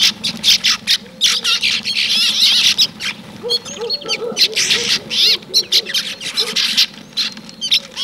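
A flock of small songbirds at a seed feeder chirping and calling constantly, many short, high calls overlapping, with a lower, repeated wavering call in the middle.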